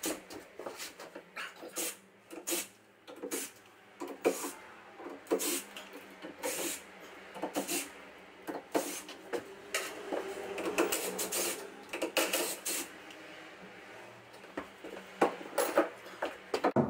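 Cordless drill-driver running in short spells on screws at the foot of a timber newel post, among scattered clicks and knocks of the tool and wood being handled. The longest run of the motor comes about halfway through.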